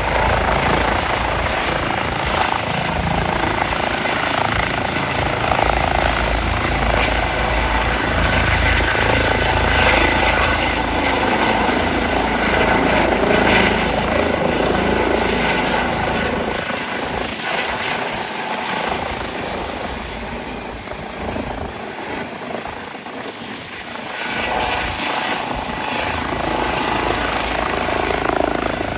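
Airbus H135 twin-turbine helicopter arriving: continuous rotor and turbine noise, easing off somewhat about two-thirds of the way through, then building again near the end.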